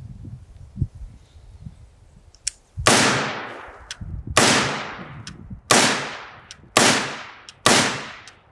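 Five rifle shots fired one after another at a steady pace, each one ringing out and fading over about a second. They are from a semi-automatic AK-pattern or AR-15 rifle fired in a five-round string during a mud reliability test.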